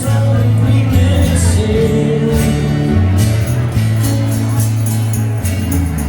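Live acoustic rock band music with singing: a steady accompaniment with sustained bass notes changing every second or so.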